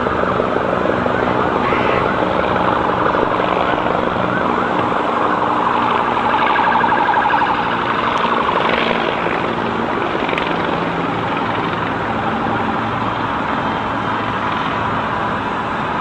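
Emergency vehicle sirens wailing over steady street and traffic noise.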